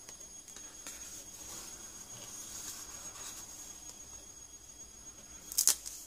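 Cardstock panels of a handmade waterfall photo folio being flipped through by hand, with soft paper rustling and a sharp snap of card near the end.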